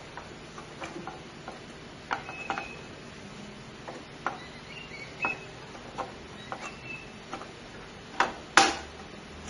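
Scattered small clicks and taps of computer parts and connectors being handled and fitted, with a sharp louder click near the end.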